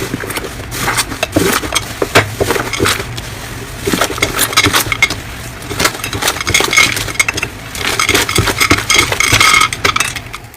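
Hands squeezing and poking slime, making rapid, irregular crackling, clicking and popping; it stops abruptly at the end.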